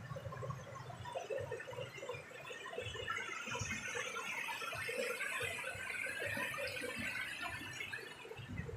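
Fast-flowing stream water babbling and splashing over rocks, a busy patter of small bubbling splashes that thickens about halfway through.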